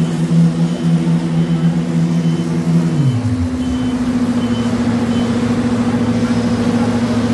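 Diesel engines of a tracked excavator and a tipper truck running. One engine's pitch drops about three seconds in as it slows down, while the other keeps a steady hum. A faint high beep repeats about every two-thirds of a second through the first half.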